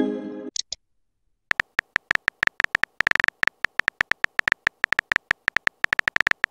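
Simulated phone-keyboard typing clicks from a texting-story animation: a rapid, irregular run of short taps as a message is typed out, starting about a second and a half in. Before that, a short pitched chime fades out as the previous message is sent.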